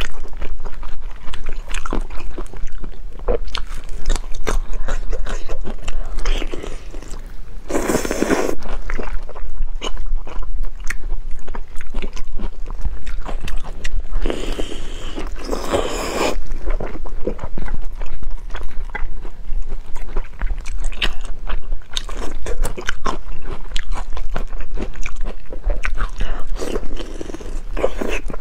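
Close-miked mouth sounds of biting and chewing soft, gelatinous braised pork-skin rolls: a steady run of small wet clicks and smacks, with two louder, longer stretches about eight and fifteen seconds in.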